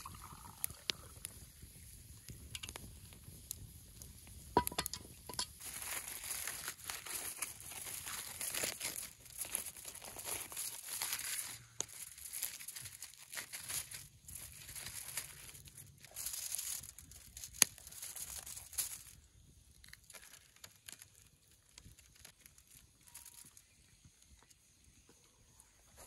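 Aluminium foil crinkling and rustling in repeated bursts as it is unwrapped by hand, with a few sharp crackles among them.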